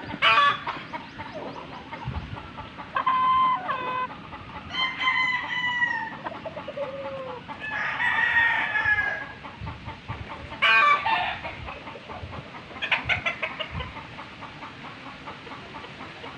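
Domestic roosters crowing and clucking: about six separate calls, the longest starting about five seconds in and trailing off downward in pitch.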